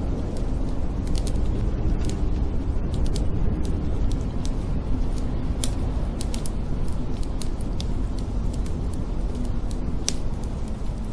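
Wood fire crackling in a fireplace, with irregular sharp pops, over the steady low roar of a snowstorm wind.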